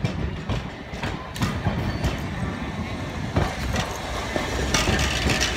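Hankai Tramway streetcar No. 502 rolling past at close range: a low running rumble with irregular knocks from its wheels over the rail joints and points.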